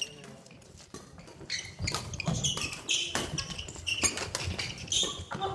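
Badminton doubles rally: sharp irregular clicks of rackets striking the shuttlecock, mixed with footsteps and shoe squeaks on a wooden gym floor, starting about a second and a half in.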